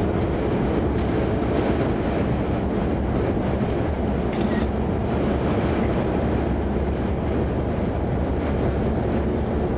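Steady road and engine rumble inside a car cruising at freeway speed.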